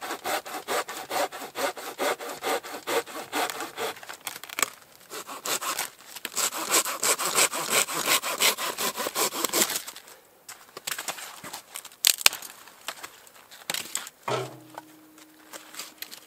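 Small folding hand saw cutting dry deadwood branches in quick back-and-forth strokes, about four a second, with a short pause about four seconds in. The sawing stops near ten seconds and gives way to scattered knocks of wood, with one sharp crack about twelve seconds in.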